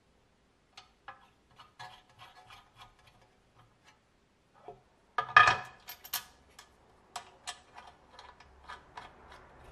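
Light metal clicks and clinks of a ball joint and its nut and bolt being fitted by hand to a Saab 900 front steering knuckle, with a louder clatter of metal parts about five seconds in.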